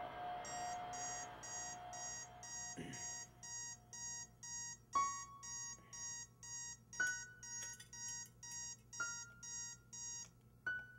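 Electronic alarm clock beeping, about two high beeps a second, over ambient music that fades out in the first few seconds. A few single struck notes ring out in the second half.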